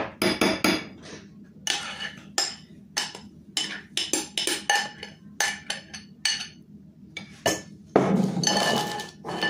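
Spatula knocking and scraping against glass bowls while beaten egg whites are scraped out of one bowl into another: an irregular run of clinks and taps, some with a short glassy ring. A longer, denser scrape comes about eight seconds in.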